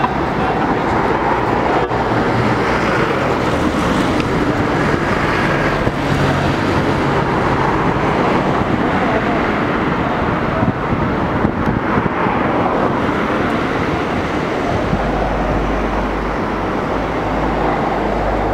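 Busy street noise: steady traffic with the indistinct voices of a crowd walking by. A deeper low rumble joins about three quarters of the way through.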